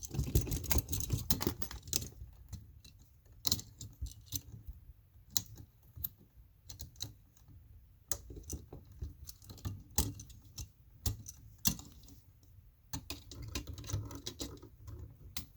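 Irregular small metallic clicks, taps and scrapes of a screwdriver and needle-nose pliers working at a tight ground-wire terminal screw on an old electrical outlet, with handling of the outlet and wires.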